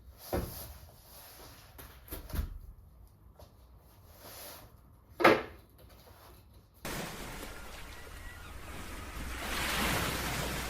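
Three knocks a couple of seconds apart, the third the loudest. Then a steady rushing noise starts suddenly and swells.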